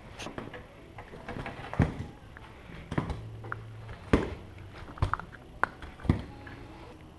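Irregular knocks and taps, about a dozen, some with a short ringing tail; the loudest come near two seconds in and about four seconds in.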